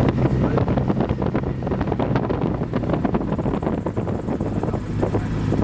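Cessna 172 piston engine running steadily, heard inside the cabin with wind noise on the microphone and a dense, irregular rattle of small knocks and clicks.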